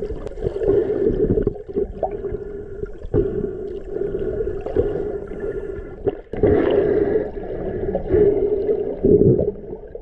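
Muffled underwater water noise recorded through a GoPro housing: gurgling and sloshing that swells and fades, with little high end.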